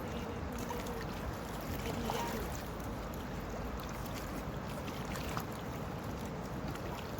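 Steady rushing outdoor ambience of a small river, with faint, brief voices near the start and about two seconds in.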